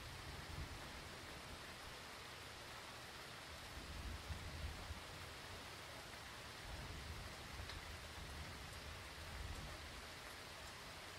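Steady hurricane rain falling, an even hiss with low rumbles swelling up a few times, the strongest about four seconds in.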